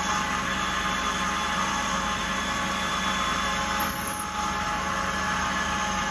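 Metal lathe running while a boring bar cuts the centre hole in a spinning steel workpiece, a steady machine noise with a held hum. A short, louder, higher-pitched stretch comes about four seconds in.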